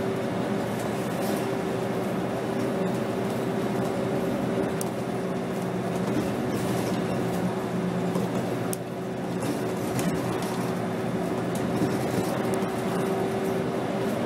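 Interior sound of a 2007 Scania K270 bus on the move: its five-cylinder diesel engine running under way with a steady whine, and small rattles and clicks from the body. The loudness dips briefly about nine seconds in.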